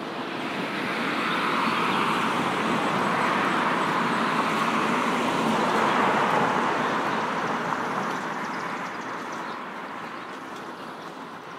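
A vehicle passing by, a rushing noise that swells over a couple of seconds, holds for several seconds, then fades away.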